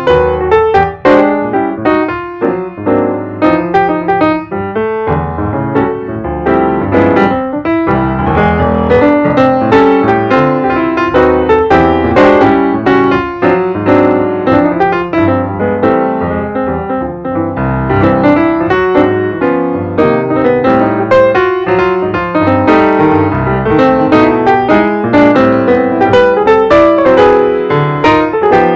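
Background piano music, many notes played in quick succession.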